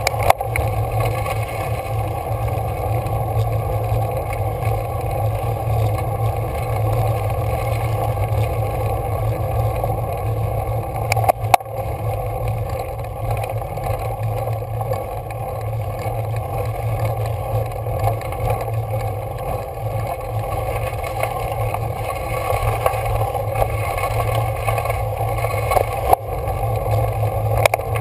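Steady rumble and hiss of a road bicycle climbing a rough road, with a few sharp clicks: one at the start, one about halfway through and one near the end.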